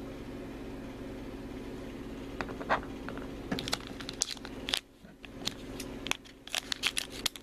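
Foil mystery-pin pouch crinkling and tearing as it is worked open by hand: irregular sharp crackles begin about two and a half seconds in and grow denser in the second half, over a steady low hum.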